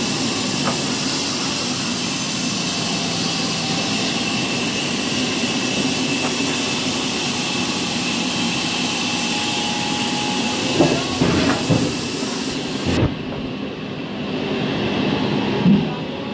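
Large wood-cutting band saw running through a poplar log, a loud steady hiss. A few knocks come near the end as the wood is handled, and the high hiss drops away abruptly about thirteen seconds in.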